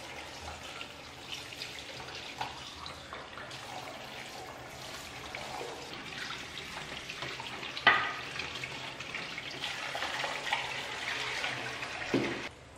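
Tap water running and splashing into a stainless-steel kitchen sink as dishes are rinsed by hand, with small clinks throughout. A single sharp knock about eight seconds in is the loudest moment.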